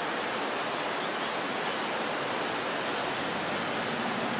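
Steady, unbroken rush of fast-flowing water, the sound of a river or stream running through the woods.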